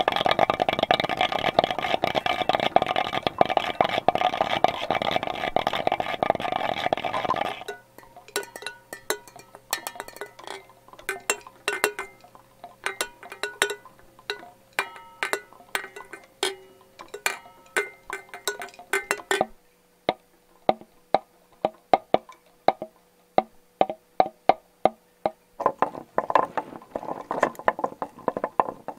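Rattling and clicking of plastic bottles and metal jar lids, a studio recreation of plastic-bottle bird scarers spinning on poles in the wind. A dense, rapid rattle for the first seven seconds or so gives way to scattered knocks and clicks over a faint low drone, then to even clicks about two or three a second, with a denser rattle returning near the end.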